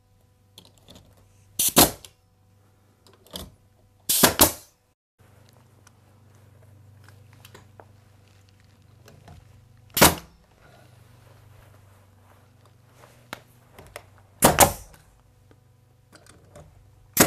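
Porter-Cable pneumatic finish nailer driving 2-inch nails through a plinth block: about five sharp shots a few seconds apart.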